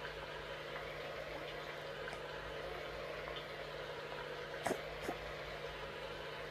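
A toddler's breathing spasm: two short, sharp hiccup-like catches about half a second apart, about four and a half seconds in, over a steady low background hum.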